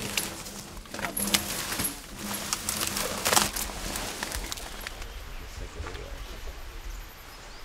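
Timber elephant dragging a log on a chain through forest undergrowth: scattered sharp knocks, clinks and cracks over rustling, thinning out after about four seconds.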